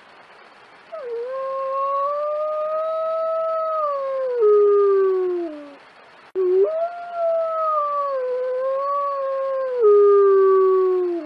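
A wolf howling: two long howls, one after the other, each holding a fairly steady pitch before sliding down at its end. The second opens with a brief low note before jumping up.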